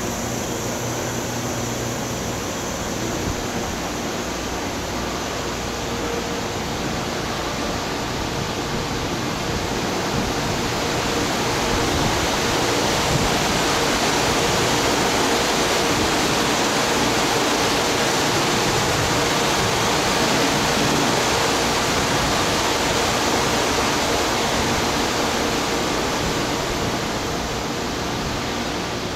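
Steady hiss and hum of a stationary 413/455 series electric train's onboard equipment running (fans and auxiliary machinery), with a faint steady tone under it. It gets somewhat louder about twelve seconds in.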